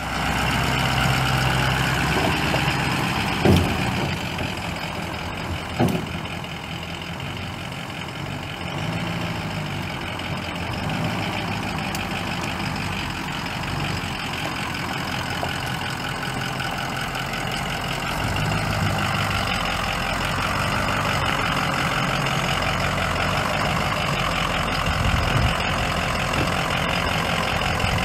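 Ford 6.0L Power Stroke V8 turbo diesel idling steadily. Two brief knocks come in the first few seconds.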